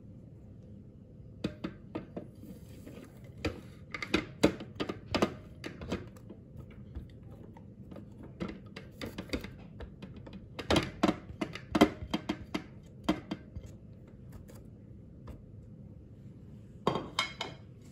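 A spatula scraping and knocking against a ceramic plate and the rim of a plastic food-processor bowl, with irregular clinks and taps in uneven clusters, as spices and garlic are pushed off the plate into the bowl.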